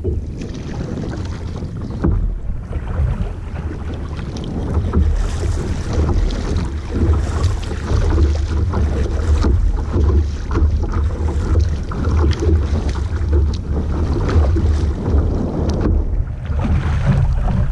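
Wind buffeting the microphone in a steady low rumble, over the splashing and dripping of a kayak paddle dipping into lake water stroke after stroke.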